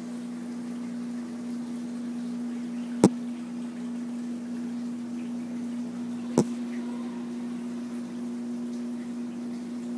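Steady motor hum with two sharp clicks, the first about three seconds in and the second about three seconds later.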